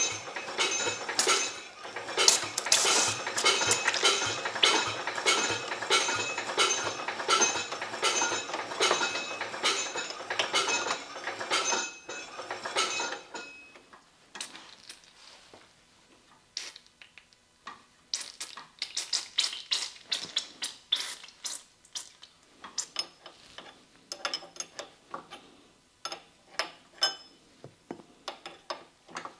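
Wrench clicking and clinking on a hydraulic hose fitting at a cylinder, working the fitting loose to bleed air and fluid from the line. Dense, rapid metallic clicking for about the first half, then slower, scattered clicks.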